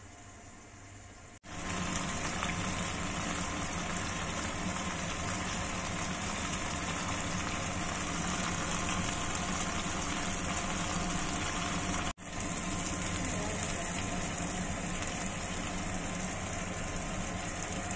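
Bangus (milkfish) pieces sizzling as they pan-fry in oil, a steady hiss. The sizzle is muffled for about the first second and a half with the lid on, then comes in loud and steady.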